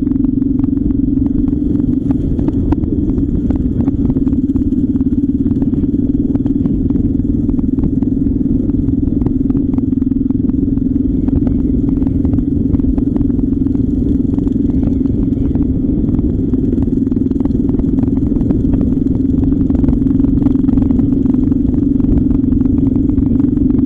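A car driving at a steady pace on a rough, broken tarmac road: a constant low drone of engine and tyres, with many small clicks and rattles from the uneven surface.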